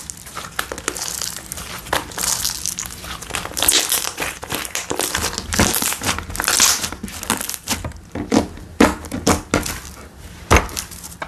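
Slime being squished and pressed by hand, making an irregular run of crackling, crinkling sounds, with a few sharper, louder strokes in the last few seconds.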